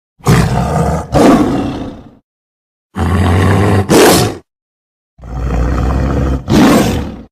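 Lion roaring: three roars, each with a louder second swell and each cut off by a gap of dead silence.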